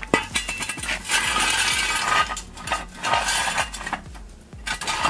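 Metal clinks and knocks of a floor jack and jack stand being set under a car, with a stretch of scraping about a second in.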